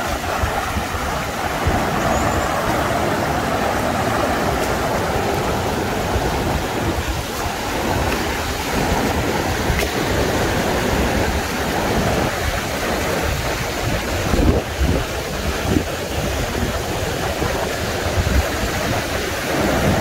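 Steady rush of water from a rocky mountain river, with a restless low rumble underneath.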